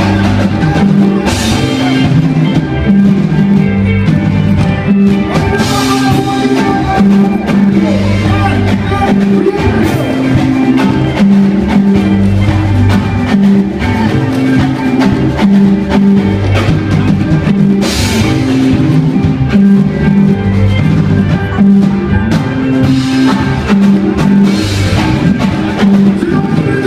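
A live band playing at a sound check, with a drum kit and a strong bass line repeating a pattern of low notes.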